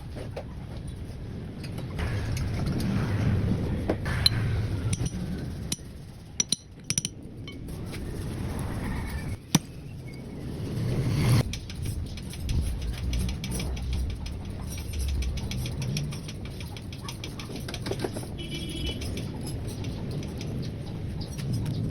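Sharp metallic clicks, knocks and rattles of hand tools and power steering gearbox parts being handled, over an uneven low rumble.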